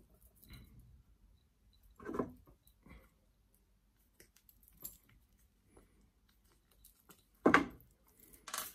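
Hand-work on a young yew bonsai during wiring: scattered faint clicks and short rustles, with a louder brief rustle about two seconds in and the loudest one near the end.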